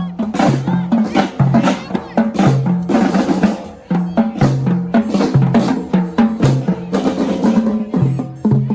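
Marching band music: snare and bass drums beating a steady march rhythm under held low brass notes that change pitch about every half second.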